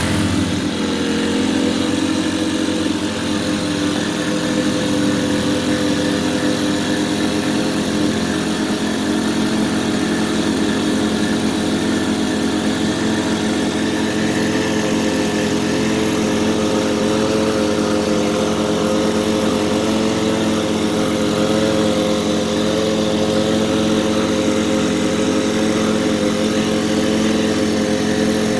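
Tohatsu outboard motor running steadily at a constant speed, its pitch settling just after the start.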